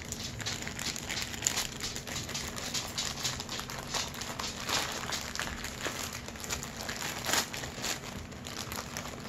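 Clear plastic packaging bag crinkling and crackling without a break as hands handle it and pull it open.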